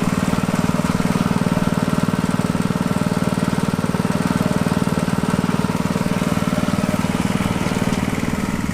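Small engine running steadily at a constant speed, a loud, even, fast-pulsing drone with no revving.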